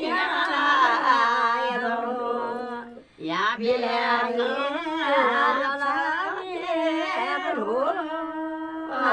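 A voice singing or humming a melody, the pitch gliding and wavering, with a brief break about three seconds in.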